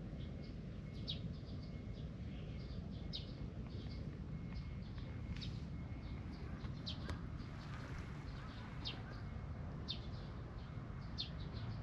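Small birds chirping outdoors: short, sharp high chirps at irregular intervals, some louder and many faint, over a steady low background rumble.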